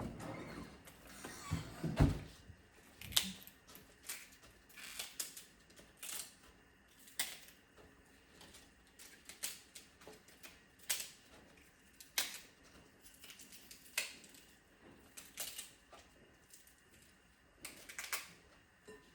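Bok choy leaves snapped off the stalk by hand: a series of crisp snaps, about one a second, irregularly spaced.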